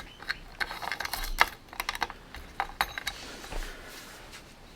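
A quick run of sharp small clicks and clinks from metal bike parts and hand tools being handled, over about three seconds, then only a faint hiss.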